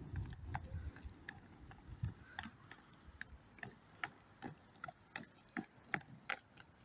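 Faint, irregular clicks of a child's inline skate wheels setting down on rough asphalt with each short stride, about two or three a second.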